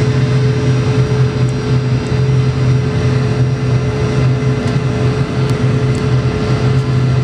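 Steady cabin drone of a Boeing 717-200 in its climb after takeoff: the tail-mounted Rolls-Royce BR715 turbofans and rushing air, with a low hum under it.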